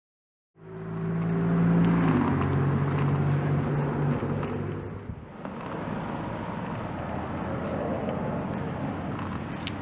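A motor vehicle's engine running steadily, loudest in the first couple of seconds and fading by about five seconds in, then a lower steady hum.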